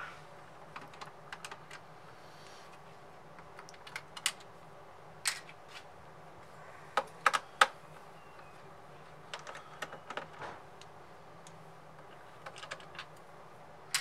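Scattered light clicks and clacks of screwdrivers and small plastic and metal parts being handled on a PlayStation 5 during disassembly, the loudest three coming close together about seven seconds in. A faint steady hum lies underneath.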